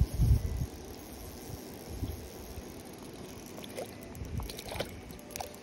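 A hooked trout splashing at the water surface as it is played toward the landing net, with a few short splashes between about four and five and a half seconds in. Low thumps on the microphone near the start, loudest of all, and a steady background hiss.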